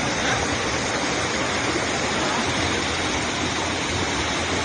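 Floodwater rushing along a narrow passage between walls, a steady, unbroken rush of water.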